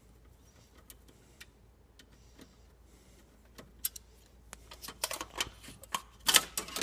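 Screwdriver backing out a small screw from a Toshiba e-Studio 4540 copier's sheet-metal panel: a few light metallic clicks spaced apart. In the last couple of seconds comes a busier run of clicks and rattles as the loosened screw and part are handled, the loudest near the end.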